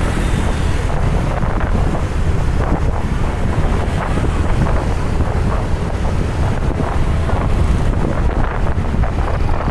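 Wind buffeting the microphone in a steady low rumble, over the noise of slow-moving traffic in a jam.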